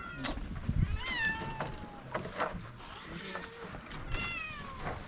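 Several cats meowing, two of them long meows that fall in pitch, about a second in and near the end, with a few short clicks between.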